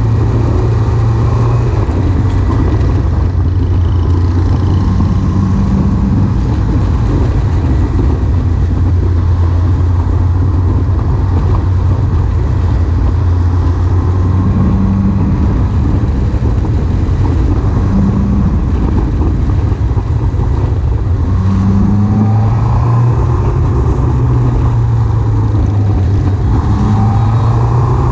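Motorbike engine running steadily at cruising speed amid road and traffic noise, its pitch rising in the last few seconds as it speeds up.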